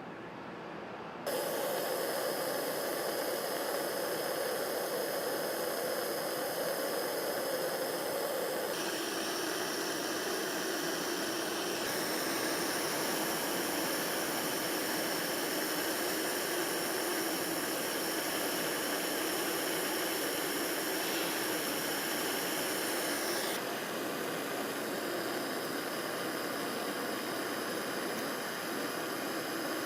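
Soldering torch flame hissing steadily. It starts abruptly about a second in, and its tone shifts a few times.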